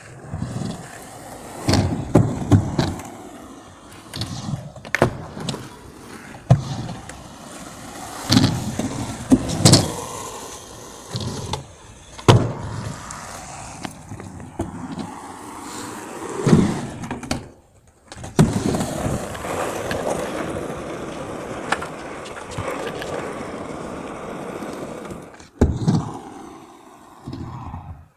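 Skateboard wheels rolling over a concrete skatepark, broken by repeated sharp clacks and slaps of the board popping and landing.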